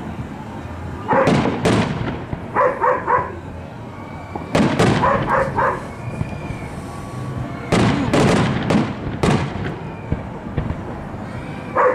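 Aerial firework shells bursting overhead in a string of loud booms, one to three seconds apart. Between the bangs a dog barks in short runs of three or four barks.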